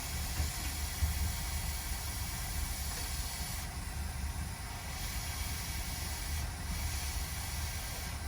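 Hot-air rework station blowing a steady hiss over a low hum while a small capacitor is soldered onto a MacBook logic board; the hiss thins briefly twice partway through.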